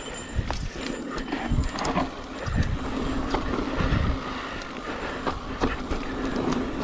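Mountain bike riding a dirt singletrack: tyres rolling on dirt with the bike rattling and clicking irregularly over bumps, and low rumbling surges now and then.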